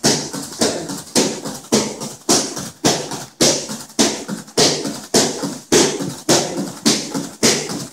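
Rapid roundhouse kicks smacking into Thai pads, a sharp slap about every half second, just under two a second, each followed by a short decaying tail.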